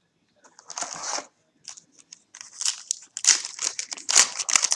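Foil wrapper of a trading-card pack crinkling and tearing in the hands as it is opened, in irregular bursts that grow busier in the second half.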